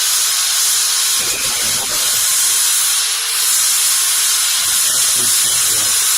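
A loud, steady hiss with no rhythm or change, with faint low sounds underneath.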